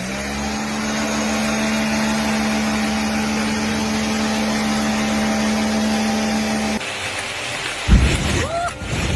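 A machine running with a steady hum over noise, cutting off suddenly near the end; then a loud low thump and a short rising-and-falling tone.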